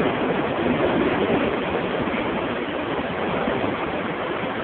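Steady running noise of a moving train, heard from inside the carriage.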